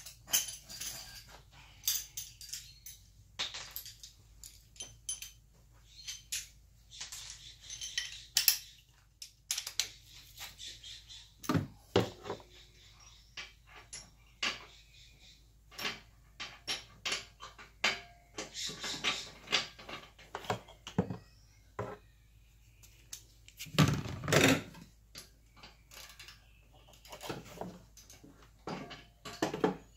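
Hand ratchet and socket clicking, with metal tools clinking and knocking against engine and exhaust parts, while working at a stubborn 13 mm fastener on the downpipe. Irregular clicks and short runs of clicking, with a few heavier knocks.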